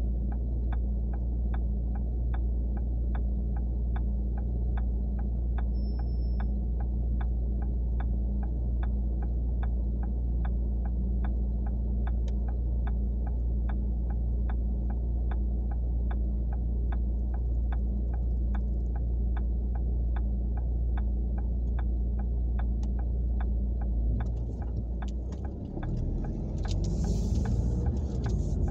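Car engine idling at a stop, heard from inside the cabin, with the turn-signal indicator clicking steadily about twice a second. Near the end the clicking stops and the car pulls away, the engine and road noise rising.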